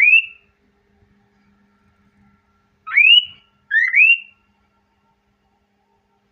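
Male cockatiel giving loud, short upward-gliding whistles: one just at the start, another about three seconds in, then a two-note whistle a second later. These are the whistles of a male in breeding mood, courting a female.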